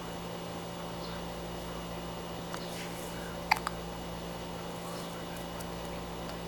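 A baby hiccuping: one short, sharp hic about three and a half seconds in, with a smaller catch just after it, over a steady low hum.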